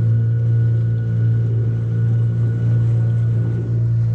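Small tour boat's engine running steadily at low speed, heard from on board as a constant, even hum.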